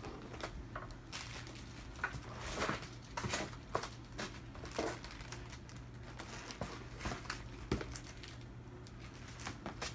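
Scattered rustling and crinkling of plastic-packaged scrapbook stickers and embellishments being handled, with light irregular taps.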